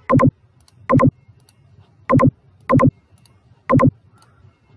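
Computer mouse button clicking five times at uneven intervals, each click a quick pair of sharp clicks, as cursors are switched on and placed in a PSpice waveform plot.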